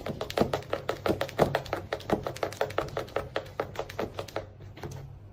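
A rapid, even run of light taps or clicks, about eight a second, that stops about four seconds in.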